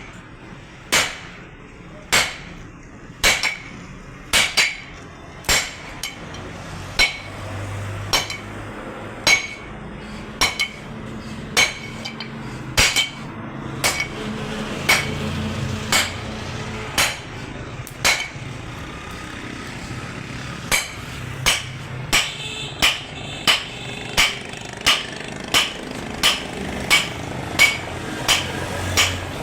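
Hand hammer forging steel on an anvil: a long run of sharp hammer blows, each with a short metallic ring, about one a second at first and quickening to nearly two a second near the end.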